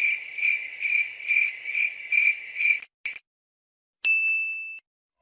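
Cricket-chirping sound effect, the "awkward silence" meme: a high chirp pulsing about twice a second that stops about three seconds in. Shortly after comes a single clear electronic ding, held for under a second.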